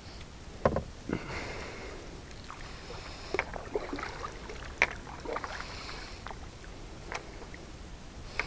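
Kayak paddling: water splashing and dripping from the paddle blades with each stroke, about every second or two, and occasional sharp knocks against the plastic hull.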